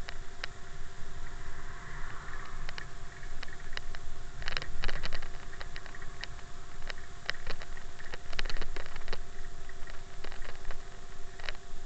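Ride noise from a camera mounted on a motorized bicycle running over a rough, gravelly road shoulder: low wind rumble with scattered rattles and knocks from the bumps, over a faint steady whine.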